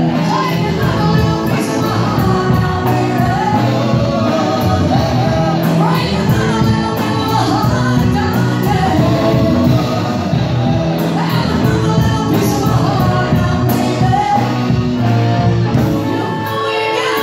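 A live rock-and-roll band playing loudly in a large hall, with a singer's voice over electric guitar, keyboard, drums and cymbals.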